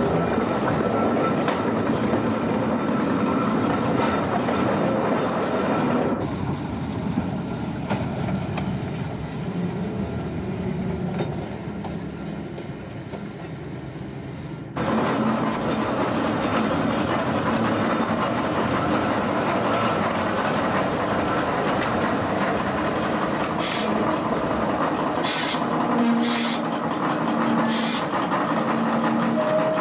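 Tram of the Opicina tramway running along its track: a steady rumble of wheels and running gear with rail clatter. It turns abruptly quieter about 6 seconds in and abruptly loud again about 15 seconds in. Several short sharp clicks and brief low hums come near the end.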